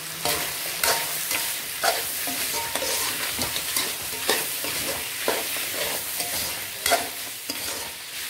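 Mutton chunks sizzling in oil and masala in a heavy-bottomed kadai while a steel ladle stirs and scrapes them, the ladle clinking against the pan about once a second over the steady hiss of frying.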